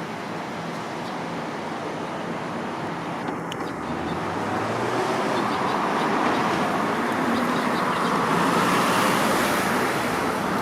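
Road traffic noise from passing cars, getting steadily louder from about four seconds in.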